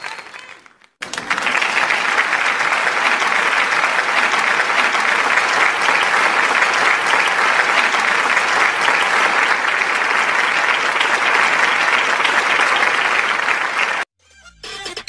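Steady applause from a crowd, starting about a second in and cutting off abruptly near the end.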